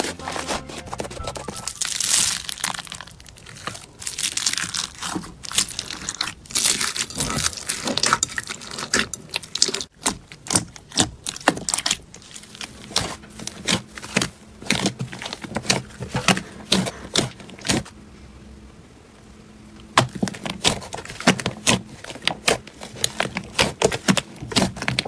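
Hands squeezing, pressing and stretching soft slime: a dense run of small wet clicks and pops as trapped air is squeezed out, with a brief quieter spell about three-quarters of the way through.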